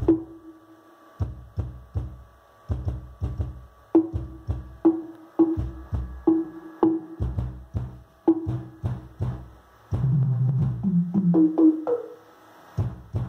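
Electronic dance music with a driving beat and heavy bass played through a trio car-audio box, its 15-inch JBL Selenium Tornado subwoofer powered by a Stetsom EX3000 amplifier. The bass beat comes in about a second in.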